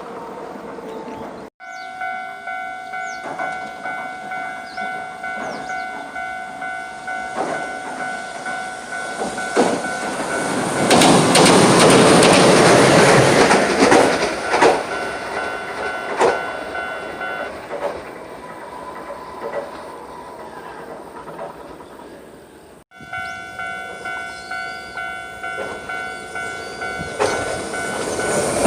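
Japanese level-crossing warning bell ringing steadily while a Hiroden tram passes over the crossing, the tram's wheels clattering on the rails and loudest for several seconds in the middle. The bell stops as the tram runs on, then rings again near the end.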